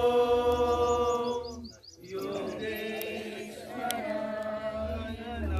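Gujarati devotional song (bhajan) being sung: one long held note that fades about a second and a half in, then after a short break a new phrase that ends on another long held note.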